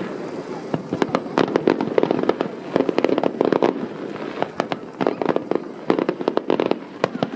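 Aerial fireworks bursting and crackling: volleys of rapid, dense pops that come in clusters every second or so.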